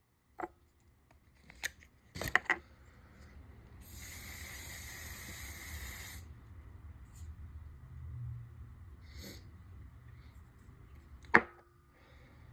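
Handling clicks, then perfume sprayed in one steady hiss of about two seconds, starting about four seconds in. A short snatch of noise follows a little after nine seconds, then a sharp loud snap near the end.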